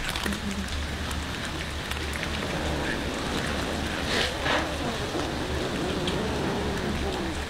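Several cats chewing and smacking on raw fish, with many small wet clicks over a steady low rumble of wind on the microphone.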